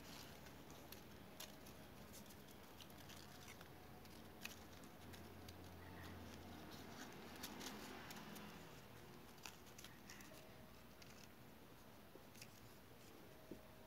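Faint, scattered crackles and ticks of stiff paper strips being handled and slid through one another as they are woven, over low room tone.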